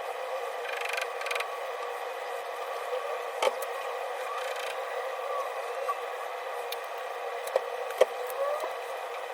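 A steady mechanical hum with a few sharp clicks: one about three and a half seconds in and two close together near the end, the last the loudest.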